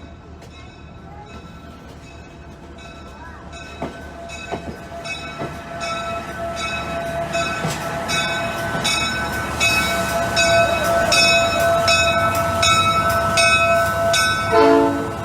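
A bell rings steadily, about two strokes a second, over the running of a passenger train, growing louder throughout; a brief horn-like note sounds near the end.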